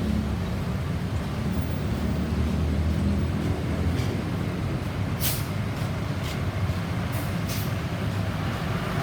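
A large vehicle's engine running with a steady low rumble, with a few short hisses about five to eight seconds in; no siren sounds.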